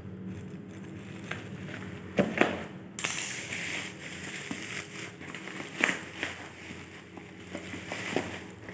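Hands handling watch packaging: rustling and crinkling, with a few sharp clicks and knocks, the loudest a little over two seconds in and just before six seconds.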